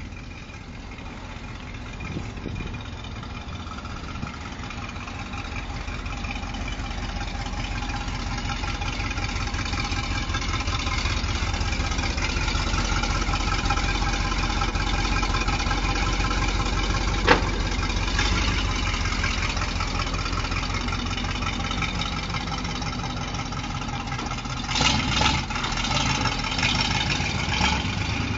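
Twin-turbo V8 engine in a Mazda RX-7 FC idling steadily, growing gradually louder toward the middle. There is one sharp click about seventeen seconds in, and a few louder bursts near the end.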